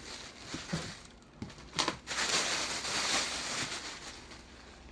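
Packaging being handled: a few light clicks and taps, then about two seconds of crinkling and rustling that fades away near the end.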